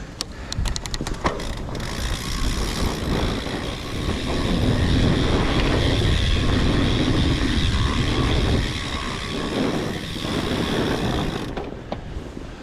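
Wind rushing over the camera microphone and a fat bike's tyres rolling along the trail, with a quick run of clicks near the start. The rush grows loudest in the middle and drops away near the end.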